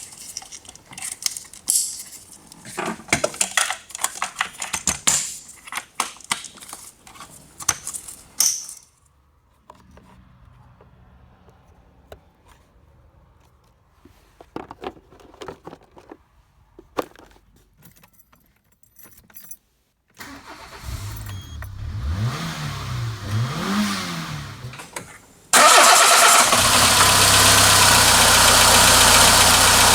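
Clicks and clatter of tools or parts being handled, then a quiet stretch. About twenty seconds in, the Peugeot 206's 1.1 litre TU four-cylinder petrol engine, fitted with a new number 3 fuel injector, starts and its revs rise and fall twice. A few seconds before the end a sudden loud, steady rush takes over.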